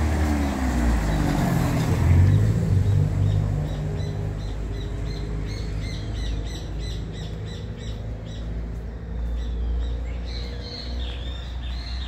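A car drives past, its engine loudest about two seconds in and fading out soon after. Then birds chirp again and again, thickest near the end.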